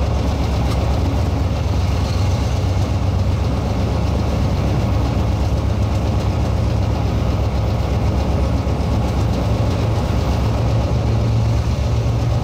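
Diesel-electric locomotive engine running with a steady low drone.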